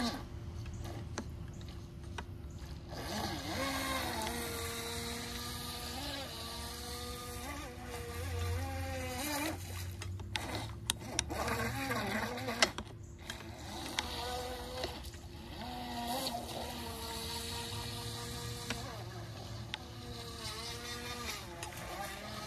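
Tempo RC boat's motor whining as it runs on the water, its pitch rising and falling with the throttle. A few sharp clicks come about halfway through.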